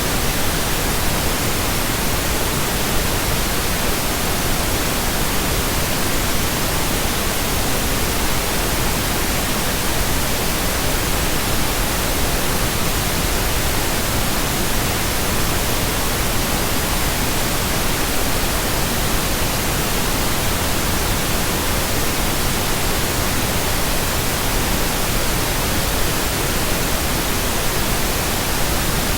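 Electronically generated pink noise: a steady, even hiss across all pitches that does not change.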